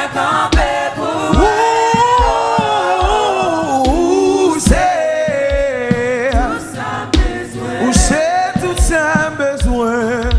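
Gospel worship song playing: voices singing with wavering, gliding lines over a steady drum beat.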